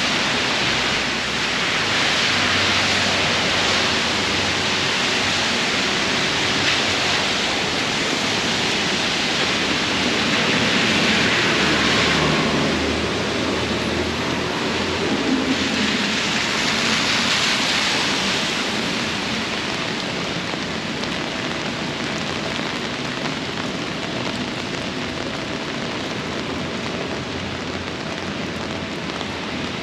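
Steady rain falling and splashing on the ground, an even hiss, with a low rumble through the first half.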